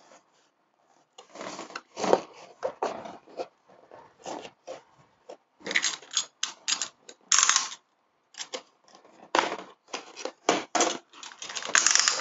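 A cardboard gift box being handled and opened by hand: a string of short scrapes, taps and rubbing of card against card, with one longer, louder scrape a little past seven seconds in.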